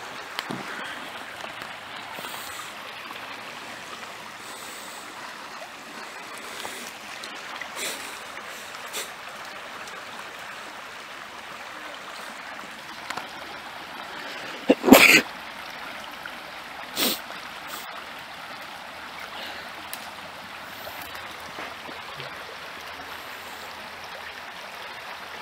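Creek water running steadily, with two short, louder sounds about two seconds apart midway through.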